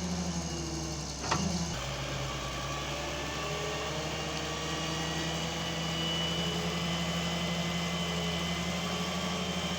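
Heavy machine's engine running steadily at idle, with a single sharp knock about a second in, after which the engine note drops slightly and holds steady.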